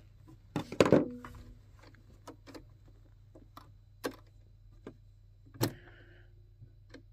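Scattered small clicks and taps of hands working at a sewing machine, getting it ready to stitch. The loudest clatter comes about a second in, over a low steady hum.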